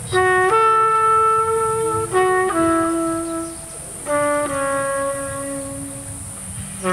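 Live jazz band music: a slow phrase of long held melody notes, each a short note leading into a longer sustained one, repeated about every two seconds.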